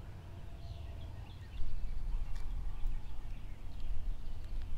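Low wind rumble on the microphone, growing louder about a second and a half in, with faint bird chirps in the background.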